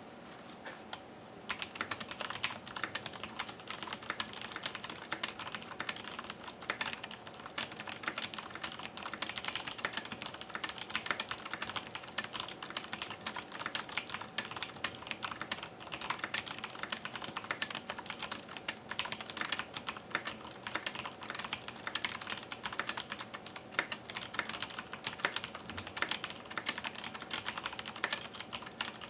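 Cherry G80-3800 mechanical keyboard with Cherry MX Clear switches and double-shot ABS keycaps, typed on steadily at about 70 words per minute: a continuous run of key clacks that starts about a second in.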